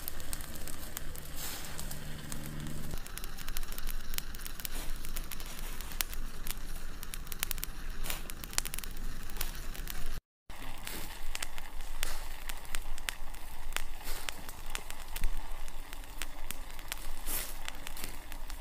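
Small open wood fire crackling, with many sharp pops and snaps. The sound drops out for a moment about ten seconds in.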